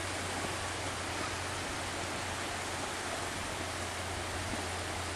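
Steady, even rushing noise of lake surf washing on a sandy beach.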